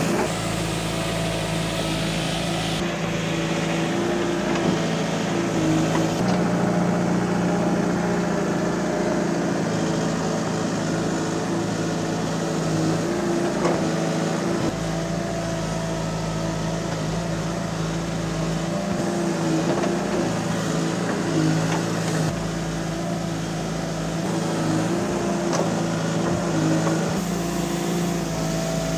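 Diesel engine of a Case backhoe loader running steadily under working load, its pitch wavering slightly as the hydraulic arm digs and dumps soil.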